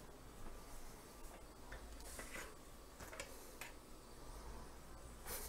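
Faint, scattered light clicks and taps against quiet room tone, from something being handled.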